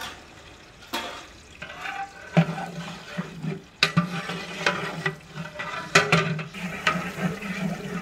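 Sliced onions frying in oil in a large aluminium cooking pot, stirred with a long metal ladle that scrapes and knocks against the pot again and again over a steady sizzle. The onions are being fried to a light golden colour for pulao.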